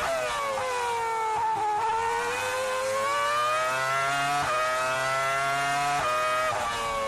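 The 3.0-litre V10 of a 2004 Renault R24 Formula 1 car heard onboard. Its pitch drops with quick downshifts as the car brakes for a corner, then climbs again as it accelerates out, with an upshift about four and a half seconds in.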